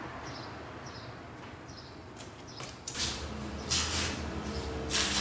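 Outdoor ambience: a few short, high bird chirps in the first half. From about three seconds a vehicle engine hums low and steadily, with several loud bursts of hiss.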